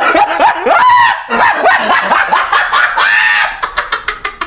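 Comedy sound effect of an animal yelping: a rapid run of short, high calls bending up and down in pitch, ending in a quick clatter of sharp clicks.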